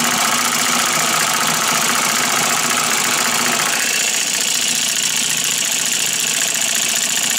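Homemade two-solenoid electric model engine running steadily on a 12-volt battery: the solenoid plungers, cam-worked make-and-break switches and flywheel give an even mechanical running sound. Its tone shifts slightly about four seconds in, as the engine is lifted by hand.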